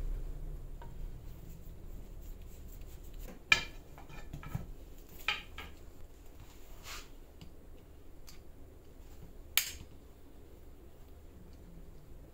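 Wooden pool cue shafts and butts with metal joint pins clacking sharply against each other and the bench as they are handled and laid down, about five separate knocks spread through a few seconds.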